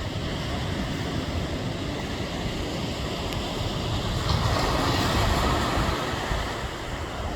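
Ocean surf rushing on the shore with wind buffeting the microphone; a louder wash of surf comes in about four seconds in and lasts a couple of seconds.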